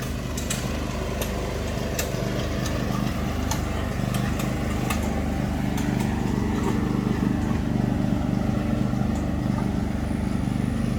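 Engine of a farm feed vehicle running steadily as it drives, picking up a little in the first few seconds, with scattered sharp clicks or rattles.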